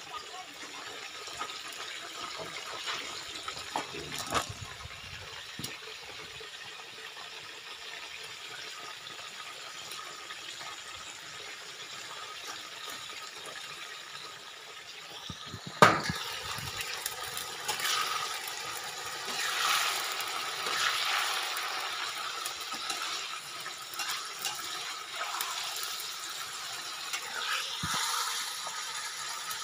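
Crickets deep-frying in hot oil in a wok, a steady sizzling and bubbling. About halfway through there is a single sharp knock, after which the sizzling grows louder and more uneven.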